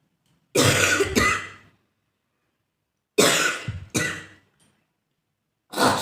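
A person coughing and clearing the throat in three bouts: two coughs together, then two more a couple of seconds later, then a single one near the end.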